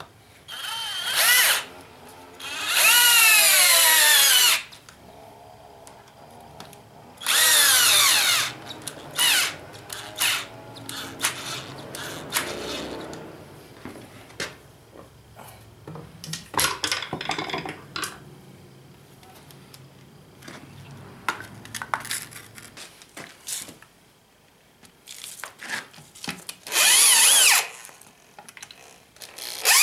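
Power drill driving screws through forged steel hooks into a wooden anvil stump, in several short runs. The motor whine slides down in pitch during each run, with clicks and clatter of handling in between.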